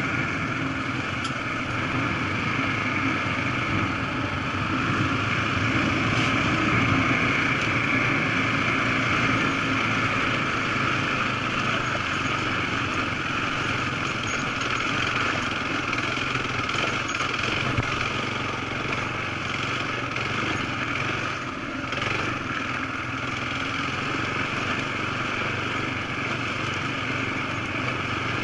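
Dual-sport motorcycle engine running steadily under way on a dirt trail, heard from on board the bike.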